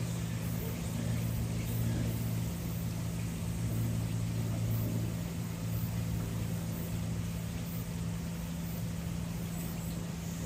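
Steady low hum of a running machine, holding an unchanging low drone over a background hiss.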